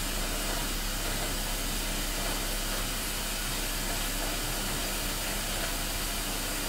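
Steady, even hiss with a low hum beneath it, unchanging throughout with no distinct clicks or events.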